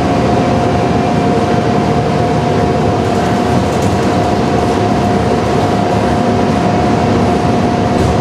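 Inside a motor coach at highway speed: a steady rumble of engine and tyres with a constant whine running through it.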